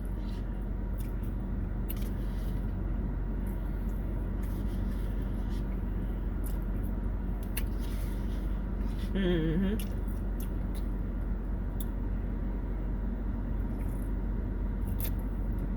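Steady background hum and noise with scattered faint clicks and scrapes of a utensil in a plastic pho container as the last of the soup is eaten. There is a short voiced murmur about nine seconds in.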